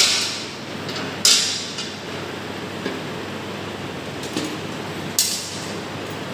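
Metal clinks and clacks of a tool and fittings as the auxiliary switch is unfastened and pulled out of a vacuum circuit breaker's operating mechanism. Three sharp knocks with a brief ring, right at the start, a little over a second in and about five seconds in, with a few lighter taps between, over a steady background hiss.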